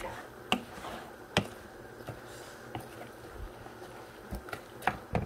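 A cooking spoon knocking against a pot while food is mixed: a few sharp knocks, two in the first second and a half and two more near the end, over a faint steady background.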